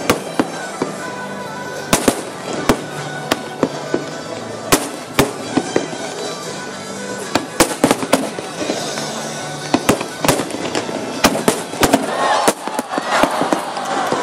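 Fireworks display: shells bursting in irregular sharp bangs, growing denser into rapid crackling near the end.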